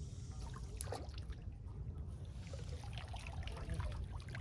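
Water trickling and splashing lightly, with small scattered clicks, over a steady low rumble.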